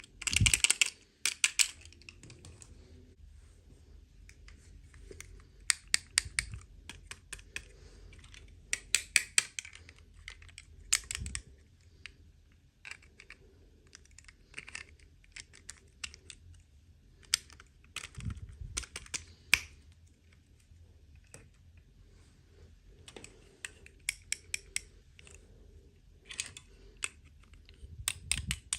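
Hands unboxing miniature plastic doll toys and their packaging: clusters of sharp small clicks and rustles, like rapid tapping, with short quiet pauses between them.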